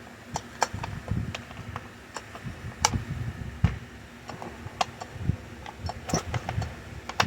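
Scattered, irregular clicks and light knocks, about one or two a second, from hands working on a disassembled Stihl MS 193 T chainsaw.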